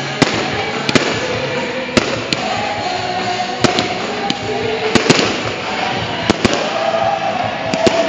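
Aerial fireworks shells bursting: a dozen or so sharp bangs at irregular intervals, some in quick pairs. Music plays underneath throughout.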